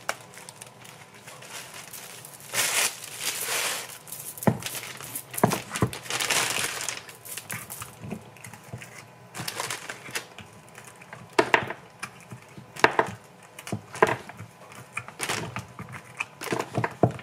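Frozen seasoning cubes being pushed out of a silicone-bottomed ice tray and dropped into a zip-top plastic freezer bag: crinkling plastic in a few stretches, with scattered sharp clicks and knocks.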